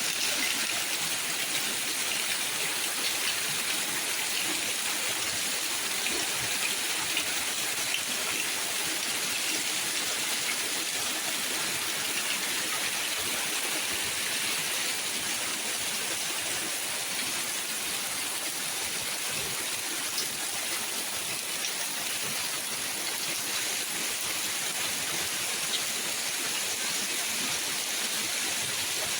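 Steady, even rushing hiss of water.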